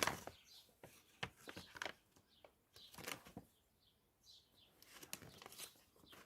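Faint, intermittent rustling and light clicks as the parts and packaging of a neck traction kit are handled.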